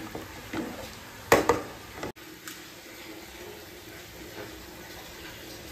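A spatula stirring water and spices in a pressure cooker, with two sharp knocks against the pot about a second and a half in. After a cut comes the steady soft hiss and bubbling of the water boiling in the open cooker.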